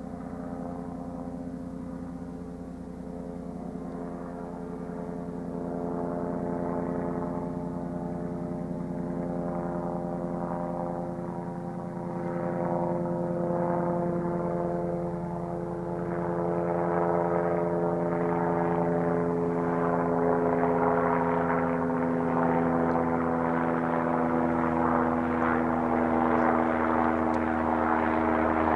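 Twin-engine BK117 helicopter approaching, its rotor and engine drone growing steadily louder.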